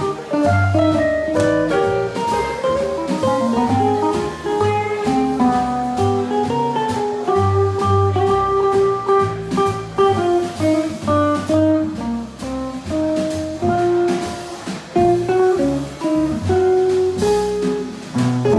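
Live jazz on archtop electric guitar, playing a single-note melodic line of quick notes over upright bass and light drums.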